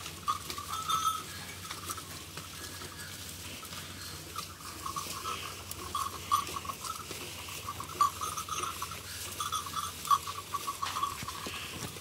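Cattle feeding on dry straw, rustling it as they eat, with scattered clicks and a high squeaky chattering that comes and goes in the background.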